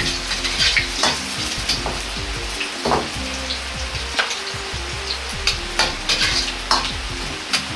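Green onion and ginger sizzling in melting pork back fat in a wok over medium heat, stirred with a metal ladle that scrapes and clinks against the wok many times.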